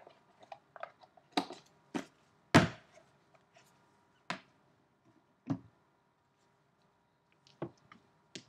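Cardboard boxes being handled: a handful of separate taps and knocks as a small box is closed and set down on a larger box, the loudest a thud about two and a half seconds in.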